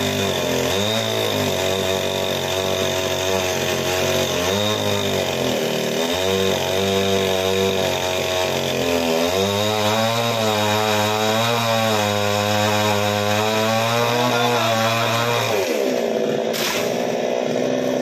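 Two-stroke chainsaw cutting through a tree trunk, the engine revving and labouring under load with a wavering pitch. About three-quarters of the way through, the pitch falls back to a lower steady run as the top section of the trunk is cut through.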